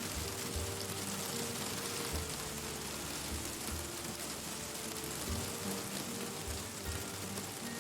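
Steady rain falling, with soft background music of slow held notes and low sustained tones under it.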